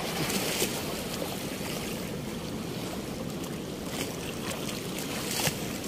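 Choppy, muddy water washing against a concrete bank in a steady rushing hiss, with a few short splashes as a wet cast net is gathered out of the water, the sharpest one near the end.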